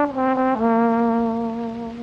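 Trombone played solo, stepping down through three notes and settling on a long held low note that fades out.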